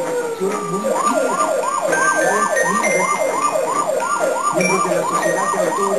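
A siren in a fast up-and-down yelp, sweeping about three to four times a second from about a second in, layered with steady tones. It follows a slow falling wail that fades out in the first half-second.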